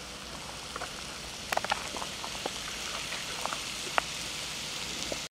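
Hot iron kadai of freshly cooked crab podimas, just off the wood fire, sizzling: a steady hiss with scattered light crackles, a small cluster about a second and a half in and a sharper pop about four seconds in.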